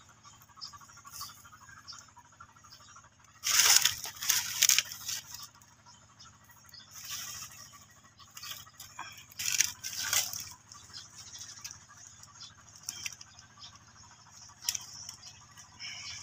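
Rustling of dry leaves and foliage in short noisy bursts. The loudest bursts come about three and a half to five seconds in and again around ten seconds, with smaller rustles and ticks between them.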